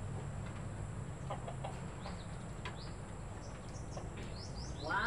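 Rhode Island Red chickens clucking as they are handled in their cage, a few short scattered calls with a louder call near the end.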